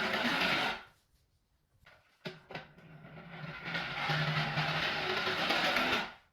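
A small battery motor, likely in a toy power tool, whirring in two runs. The first run stops just before a second in. After a pause with a few clicks, the second run builds up again and cuts off near the end.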